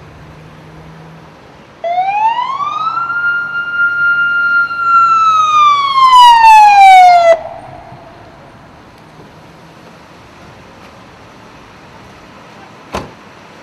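Local police patrol car's siren sounding a single slow wail: it rises for about a second, holds high, then falls and cuts off abruptly about halfway through. Its peak is very loud. Near the end there is one short, sharp click.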